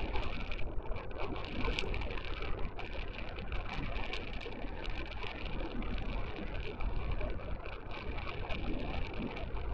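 Wind buffeting the microphone: a steady low rumble with gusty crackling flutter.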